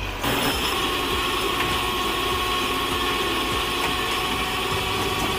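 A heavy crane tow truck's engine running steadily, with a thin steady whine over it.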